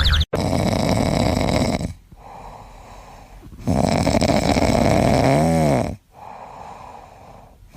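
Loud snoring: two long, rough snores about three and a half seconds apart with quieter breaths in between, the second ending in a brief rising-and-falling whistle.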